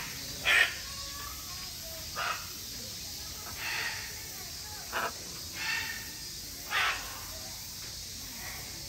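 Great green macaws giving about six short, harsh, raspy calls, the loudest about half a second in.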